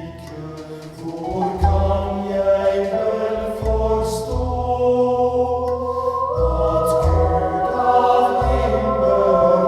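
Music with choir singing, played back through an Elekit TU-8900 2A3 tube amplifier and a two-way speaker with Vifa drivers. It has slow, held notes over deep bass notes that change every second or two.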